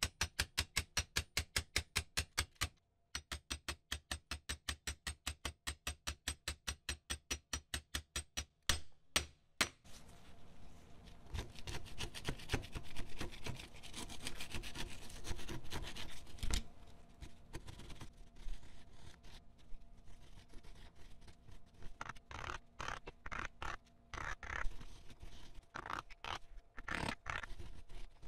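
Hand rubbing strokes on parts of a rusted revolver. Quick, even back-and-forth strokes come at nearly four a second, with a short break about three seconds in, and stop at about eight seconds. A continuous scraping rub follows, and near the end come scattered single strokes.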